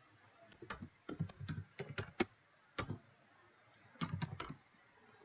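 Computer keyboard keystrokes while a password is typed: an uneven run of key presses for about two seconds, then a short quick burst of several keys about four seconds in.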